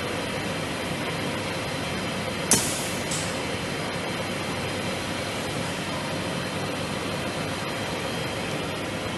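Steady hum of machinery in a CNC machining workshop, with a sharp mechanical clack about two and a half seconds in and a weaker one just after.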